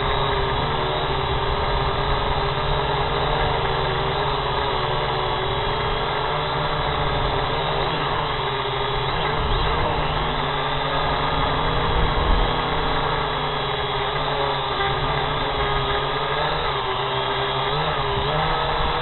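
Small multirotor drone's motors and propellers whining steadily, close to the onboard camera's microphone, the pitch wavering up and down as the drone manoeuvres. A brief low bump about twelve seconds in.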